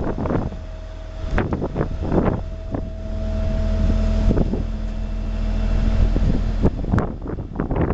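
Wind buffeting the microphone in irregular gusts over a steady low rumble and a faint steady hum.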